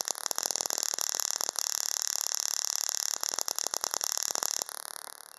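Small tabletop Tesla coil running and throwing sparks off its metal sphere top: a dense crackling buzz with a strong high hiss, which eases off near the end.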